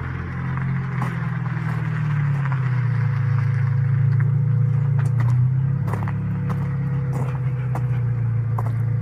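Vehicle engine running as it drives up close with headlights on, a low steady drone that grows louder over the first few seconds and then holds, with scattered faint crackles.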